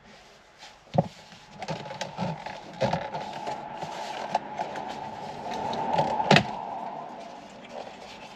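Plastic steering-column trim being handled and worked loose, with scattered clicks and knocks, the loudest about a second in and again about six seconds in, over a steady whine.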